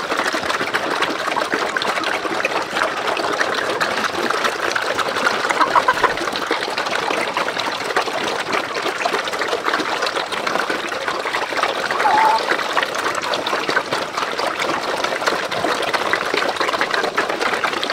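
A herd of pigs eating wet feed at a trough and off the ground, a steady, dense wet slurping and chewing made of many small smacks and clicks.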